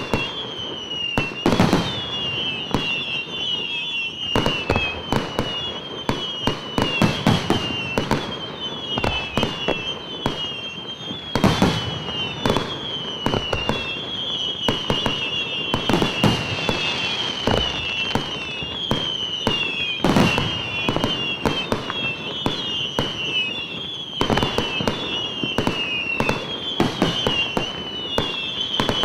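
Aerial fireworks display: shells bursting in rapid, irregular succession, a loud sharp bang every second or less, with a run of high falling whistles between the bangs.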